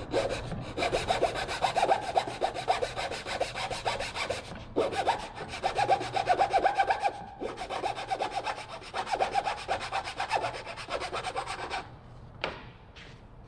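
Small fine-toothed hand saw cutting a thin wooden strip in quick back-and-forth strokes, pausing twice and stopping about a second and a half before the end. A couple of light knocks follow.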